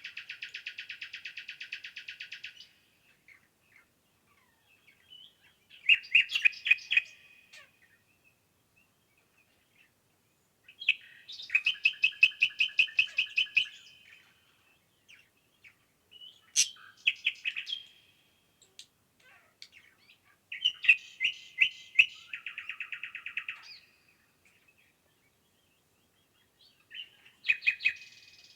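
A songbird singing a rapid trilling song, repeated six times with short pauses between phrases. Some phrases open with a few sharp high notes before the trill.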